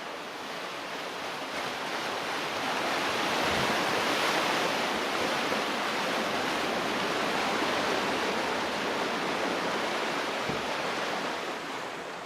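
Sea water surging and churning among rocks, a steady rush that swells during the first few seconds and slowly eases off.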